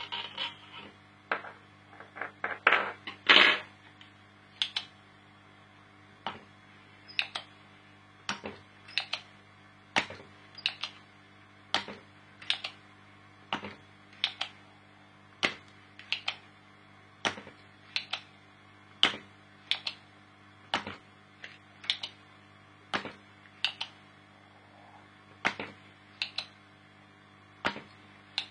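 Sharp clicks at roughly one a second, with a louder quick cluster of clicks in the first few seconds, over a steady low hum.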